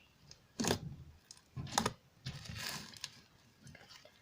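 Cloud slime being squished and pressed by hand for ASMR: two sharp pops about a second apart, then a stretch of fine crackling.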